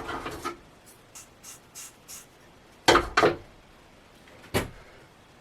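Work handling noises while fitting fibreglass cloth: light rustling, then a few sharp knocks, two close together about three seconds in and one more a moment later.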